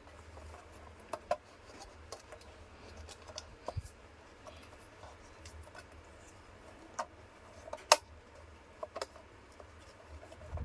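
Scattered light clicks and taps of table-fan parts being handled and fitted back together during reassembly, with one sharper click about eight seconds in, over a faint low hum.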